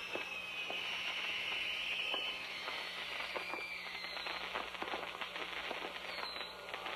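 Ground firework fountain spraying sparks with a steady hiss that slides slightly lower in pitch, giving way about two and a half seconds in to dense crackling pops that run on.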